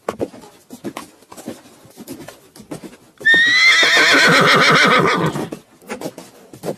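A horse neighs loudly about three seconds in: one long whinny of about two seconds that starts high and falls away in quavering pulses. Short sharp clicks and knocks are scattered before and after it.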